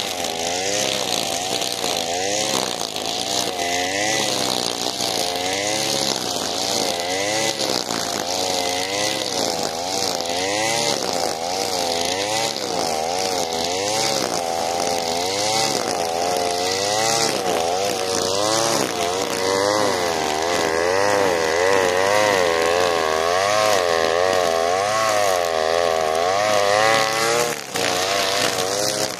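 Alpina Star 55DP two-stroke gas brushcutter running at high revs while cutting tall grass, its engine note rising and falling about once a second as the line sweeps through the grass. The sound drops briefly near the end.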